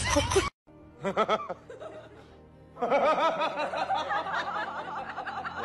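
A person laughing hard in quick, repeated bursts, starting about three seconds in; a short laugh comes before it, just after a brief drop-out in the sound.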